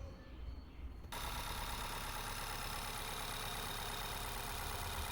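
Car engine idling with a misfire. It is faint for about a second, then gets suddenly louder and runs steadily.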